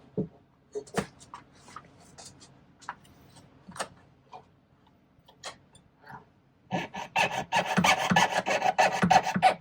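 Scattered light clicks and taps of metal handling, then, about seven seconds in, a jeweler's saw with a 00 blade starts cutting 18-gauge sterling silver sheet in quick rasping strokes.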